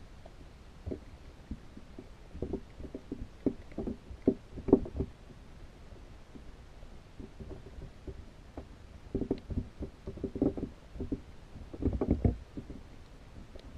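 Muffled knocks and taps heard underwater by a GoPro inside a baited pinfish trap. They come in bunches of quick taps, with quieter gaps between.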